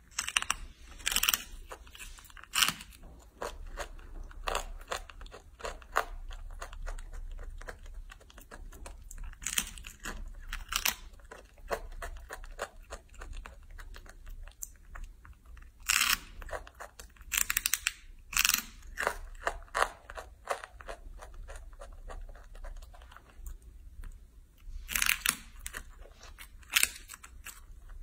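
A young macaque biting and chewing dried red jujubes close up: steady crackling, crunchy chewing with several louder bursts of bites.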